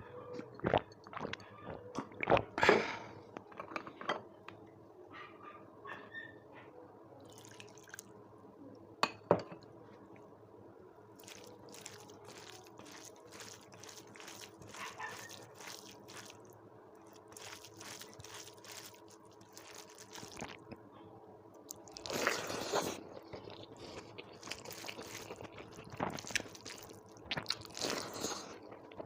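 Close-miked eating sounds: a person chewing and crunching mouthfuls of food, with scattered wet clicks. The loudest crunchy bursts come about two-thirds of the way in and again near the end.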